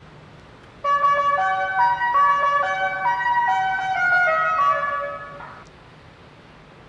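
A short tune of held, horn-like electronic tones stepping up and down in pitch. It starts about a second in and stops after about four and a half seconds.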